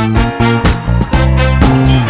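Background music with a steady beat and bass line, in a funk or soul style.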